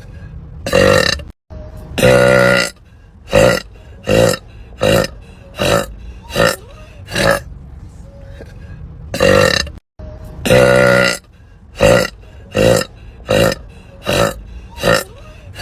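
A string of about fifteen loud burps from women, one after another, mostly short with a couple of longer drawn-out ones, broken by two brief drop-outs to silence.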